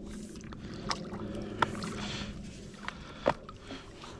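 Water splashing and sloshing as a hooked carp swirls at the surface and a landing net is moved through the water, with a few sharp clicks, the loudest about one and a half seconds in and near the end.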